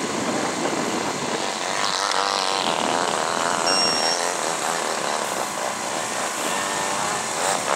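Engine of a radio-controlled model biplane running in flight, its pitch wavering up and down as the plane manoeuvres and passes overhead.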